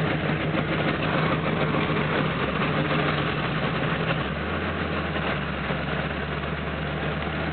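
Classic Ford Bronco's engine running at low revs while the truck crawls over a rocky ledge; about four seconds in its note drops lower and settles into an idle.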